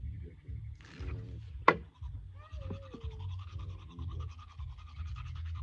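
Teeth being brushed with a toothbrush in quick scrubbing strokes, with a sharp click about a second and a half in.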